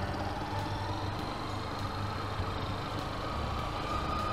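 Lifan KPR 200 motorcycle engine running at low speed as the bike rolls along, with a faint whine that climbs slightly in pitch near the end.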